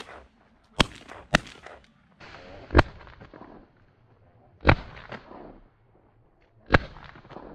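Shotguns fired by two duck hunters at a passing flock: five loud, irregularly spaced shots, each with a short echo.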